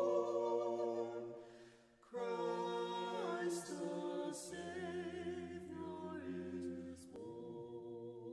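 Choir singing unaccompanied in chords. One phrase fades out about two seconds in, a new phrase starts right after, and a softer held chord follows near the end.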